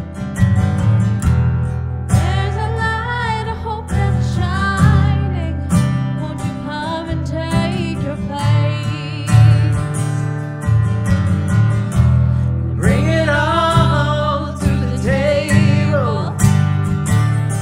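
Acoustic guitar strummed steadily with a woman singing over it, her held notes wavering with vibrato.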